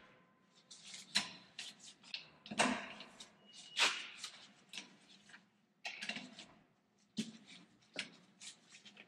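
Lug nuts on a Jeep Wrangler TJ front wheel being cracked loose with a breaker bar: a string of separate sharp metal clicks and clanks, about a second or more apart.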